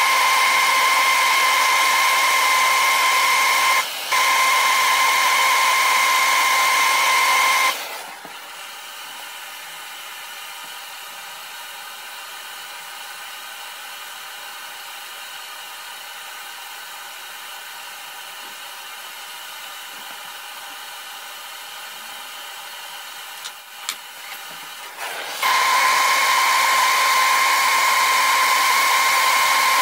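Handheld gas torch burning with a steady hissing roar and a high whistle, heating brass ramrod pipes for soldering. It goes out about eight seconds in, leaving a faint hiss, and after a few clicks it comes back on about twenty-five seconds in.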